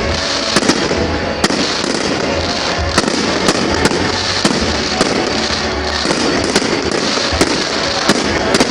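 Fireworks going off: sharp bangs at irregular intervals, about two a second, over a dense continuous crackle.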